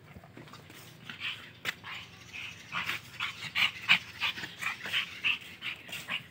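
A dog giving a rapid run of short, high-pitched cries, about three or four a second, starting about a second in and loudest near the middle.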